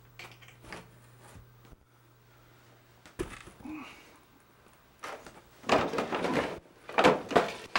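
A person clambering up behind a cluttered desk: faint clicks, a single knock about three seconds in, then bursts of scuffling and rustling that are loudest near the end.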